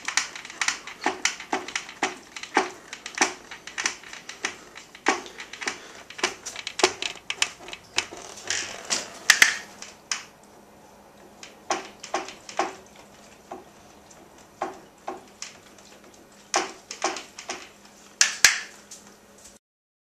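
Rear suspension of a 2004 Honda CRF250R clicking each time the bike is pushed down and compresses: a run of sharp clicks, with a lull about halfway through. The shock has just been rebuilt; the owner guesses worn linkage bearings.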